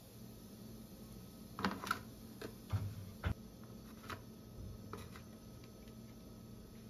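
Kitchen tongs clicking and tapping as fried breaded medallions are lifted and set into a plastic food container: a scattering of light, irregular clicks and knocks over a low steady hum.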